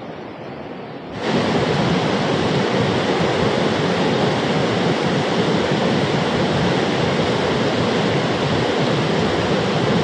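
Fast muddy river water rushing over rocks in rapids, a steady loud rush that jumps much louder about a second in.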